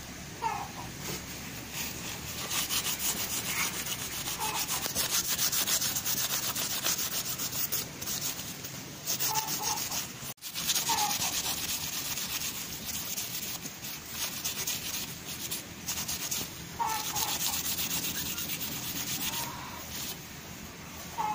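A freshly quenched steel knife blade being rubbed hard with a cloth in fast back-and-forth strokes, a rasping scrub that cleans the scale off after hardening. The scrubbing breaks off for a moment about halfway through.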